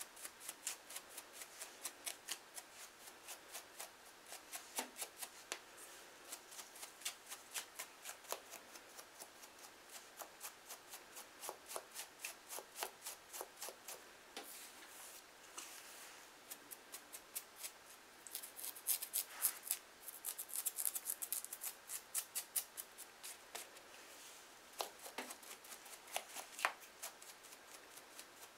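A comb scraping over a dry, heavily flaking scalp and through the hair, lifting dandruff flakes with a crisp, crunchy scratch. The strokes come in a steady run of about three a second, with a faster, louder flurry about two-thirds of the way through.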